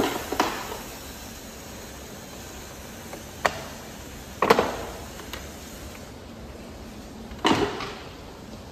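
Handling noise from the parts of a small radio-controlled model aircraft being fitted together: a few short knocks and brief scraping rustles, spaced a second or three apart, over a steady background hiss.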